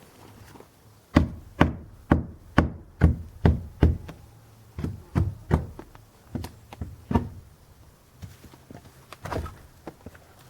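Hammer blows on wood, about two a second, in two runs of roughly half a dozen strikes each, with one more blow near the end.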